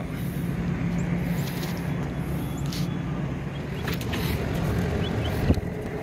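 Steady hum and rush of running rooftop HVAC machinery. Over it come a few light clicks and one sharp knock about five and a half seconds in, from the smoke detector's clear plastic cover being handled and fitted back on.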